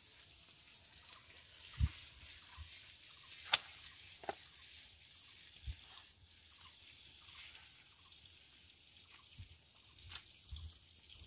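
Scattered light taps and clicks from banana leaves and a small bowl being handled and set down on the ground, with a few dull thumps, over a faint steady hiss.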